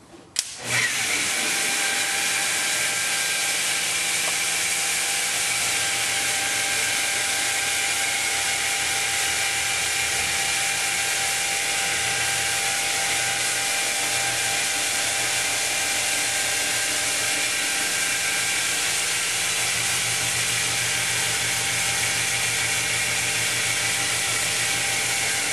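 FLEX electric wet polisher switched on about half a second in, then running steadily with an even whine as its round pad grinds over a wet stone wall.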